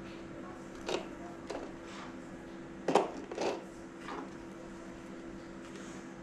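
A few light plastic clicks and knocks as a toy quadcopter and its small FPV camera are handled, the loudest pair about three seconds in, over a steady low hum.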